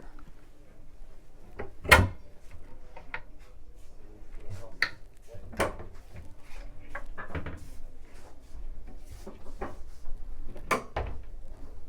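Irregular knocks and clicks, like handling and fittings being moved, with a sharp loud knock about two seconds in and another strong one near the end.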